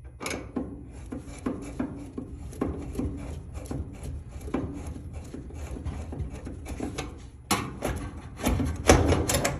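Metal parts of a dryer's idler pulley assembly being handled: a run of scrapes and light knocks as the pulley and its tension spring are worked off the bracket, with louder clatter in the last two seconds.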